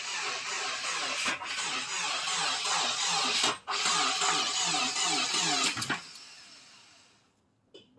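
Starter motor cranking the 2017 Subaru WRX's turbocharged flat-four engine, which does not catch; the engine is damaged by severe rod knock and won't start. The cranking breaks off briefly about three and a half seconds in and stops about six seconds in.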